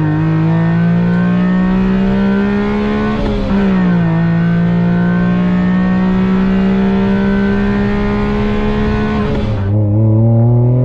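Small three-cylinder kei-car engine heard from inside the cabin, accelerating hard through the gears: the engine note climbs steadily, drops with a gear change about three and a half seconds in, and climbs again. Near the end it cuts to another in-car recording of the engine pulling up from lower revs.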